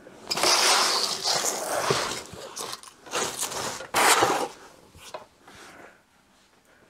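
Cardboard pizza boxes, drink cans and clothes being shoved across a wooden floor under a bed: three bursts of scraping and rustling, the longest at the start and the last about four seconds in.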